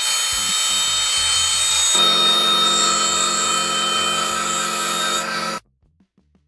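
Electric power tool running steadily with a whine; about two seconds in, a lower hum joins as the sound changes, and it cuts off suddenly near the end.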